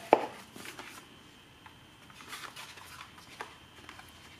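Handling noise from a small black Camect network video recorder being turned over in the hands: one sharp knock right at the start, then faint rubbing and a few light clicks of fingers on its casing.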